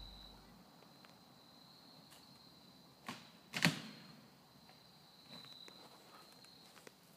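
Insects buzzing on one faint, steady high note, with two sharp cracks about half a second apart a little after three seconds in, the second the louder.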